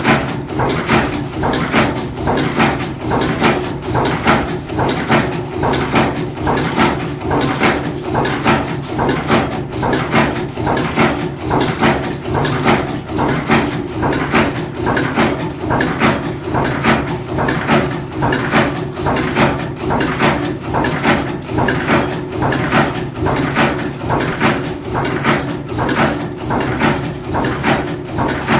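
Cold-forging bolt former machine running: a steady machine hum under an even rhythm of punch strokes, about two a second.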